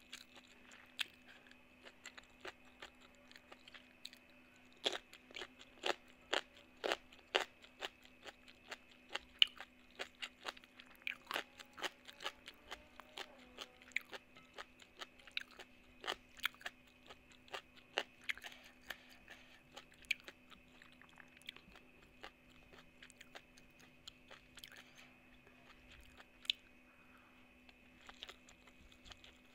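Close-up mouth sounds of a person chewing spicy mango salad with rice: crisp crunches and wet chewing. A quick run of sharp crunches comes in the first third, then slower, sparser chewing, over a faint steady hum.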